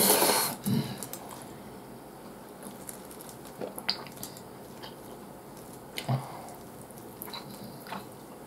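A person slurps ramen noodles in one short, loud burst. Then comes quieter chewing with a few soft, wet clicks and smacks.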